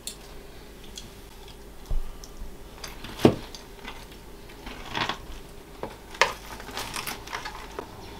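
Knife and fork clicking and scraping on a plate as cooked pork steak is cut up: scattered short knocks, the loudest about three seconds in.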